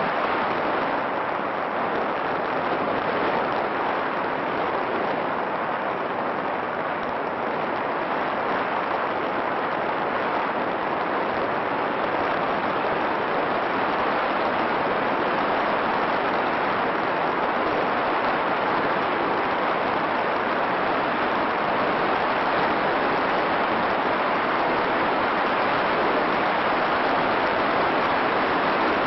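A steady, even hiss with no tones or distinct events, holding at the same level throughout.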